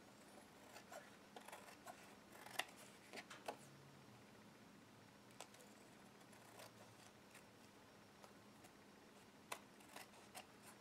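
Craft scissors snipping through thin paper napkin along the edge of glued cardstock: faint, short snips at irregular intervals, the sharpest between about two and three and a half seconds in.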